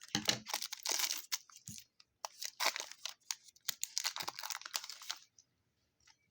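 Foil trading-card pack wrapper crinkling and tearing in the hands, a run of quick crackles and scrapes that stops a little after five seconds in.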